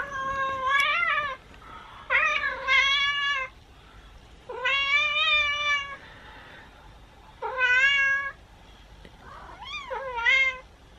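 A cat meowing again and again, played from a video through a smartphone's small speaker: about seven drawn-out meows, some up to a second and a half long, with short gaps between them.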